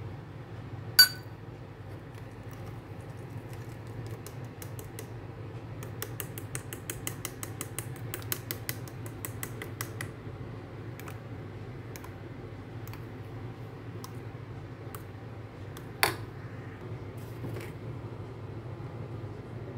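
Metal spoon stirring batter in a ceramic bowl: a sharp ringing clink about a second in, then a run of rapid light clicks of the spoon against the bowl for several seconds, with scattered clicks after. Another sharp knock comes near the end, over a steady low hum.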